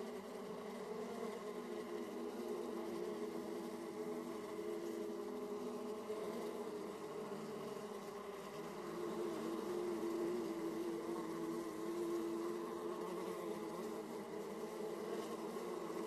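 Honeybees buzzing at a hive entrance: many bees at once make a steady, dense hum, with individual wingbeat tones wavering in pitch. It grows a little louder about ten seconds in.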